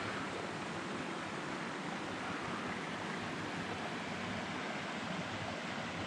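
Steady rush of a waterfall and river rapids, an even hiss that does not change.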